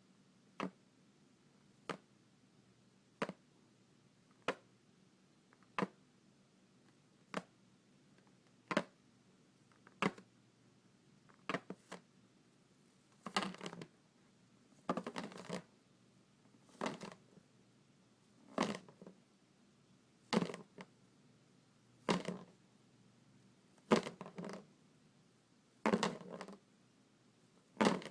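Fingers and nails on an inflated rubber balloon. For the first half they make single sharp taps about every second and a quarter. From about halfway they change to longer rubbing strokes, each about half a second, roughly every two seconds.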